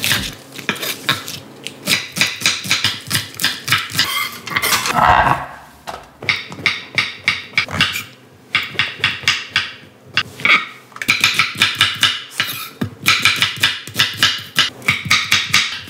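Kitchen knife chopping vegetables on a wooden end-grain cutting board: runs of quick, crisp cuts, several strokes a second, with short pauses between runs as green onion, mushroom and then onion are sliced.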